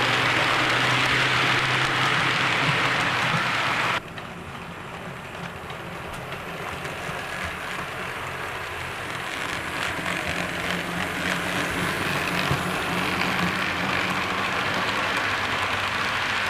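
Model train running on its track: the steady whirr of the motor and the rumble of wheels on rail. The sound drops suddenly about four seconds in, then builds again as a model diesel locomotive and its coaches approach and pass close by.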